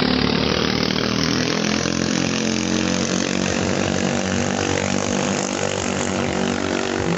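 Small 220cc racing-boat engines running at high revs, holding a fairly steady pitch.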